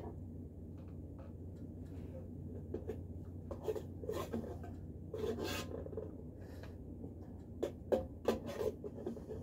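Scraping and rubbing in a metal pot and a bowl as food is handled, with a few sharp clinks near the end, over a low steady hum.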